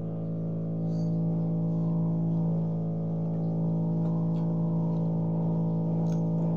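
A steady, unchanging low droning tone with many overtones, with a few faint clicks over it.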